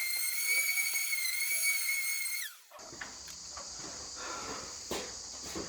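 Electric sander's motor whining at a steady high pitch, then winding down and stopping about two and a half seconds in. After that, a steady chirring of crickets with a few light knocks and clicks.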